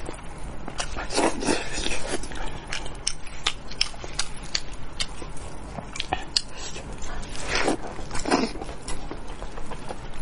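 Wet, sticky tearing and squelching of spicy braised goat head meat pulled apart by hands in plastic gloves, mixed with close-up chewing and lip smacks; irregular sharp clicks, with a few louder wet tears about a second in and again near the end.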